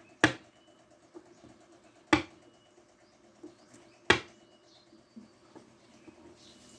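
Three sharp knocks on a wooden board, about two seconds apart, each with a short ringing tail, with a few lighter taps between them, from a hand in a hard-knuckled motorcycle glove striking the board.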